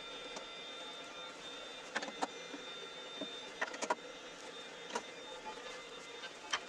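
Wood lathe running with a steady whine of several fixed pitches, with scattered sharp clicks and taps over it.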